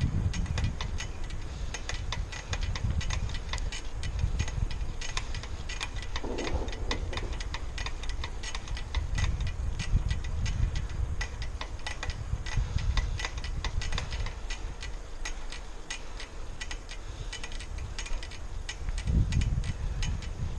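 Bicycle ticking and rattling as it rolls along a paved path, many quick irregular clicks, over a low rumble of wind on the microphone that swells near the end.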